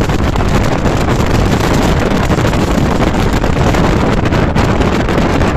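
Wind buffeting the microphone on a RIB boat running at speed, mixed with the boat's engine and the rush of water along the hull. Loud and steady throughout.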